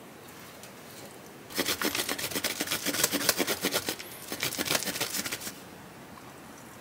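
Hard cheese grated on a handheld metal grater: a fast run of scraping strokes starting about a second and a half in, with a brief pause near the end, stopping about four seconds later.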